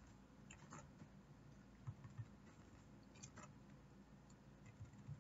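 Near silence with a few faint computer keyboard and mouse clicks as code is being edited.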